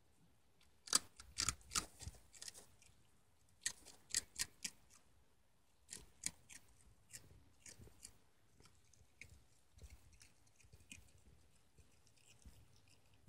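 Cross fox chewing food with sharp crunching bites. The bites come in quick clusters over the first few seconds, then grow sparser.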